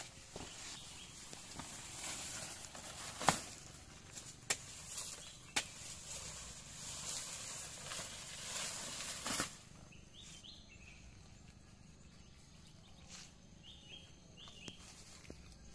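Banana leaves rustling as they are cut and handled, with several sharp snaps, until the rustling stops abruptly about nine seconds in. Then quieter ambience with a few short bird chirps.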